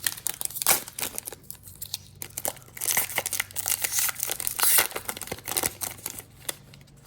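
Wrapper of an NBA Hoops trading-card pack crinkling and tearing as it is opened by hand. The crackling is irregular and thickest around the middle.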